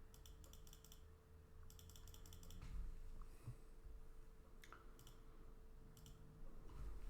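Faint clicking of a computer keyboard: two quick runs of rapid taps in the first two and a half seconds, then a few single clicks, over a faint steady hum.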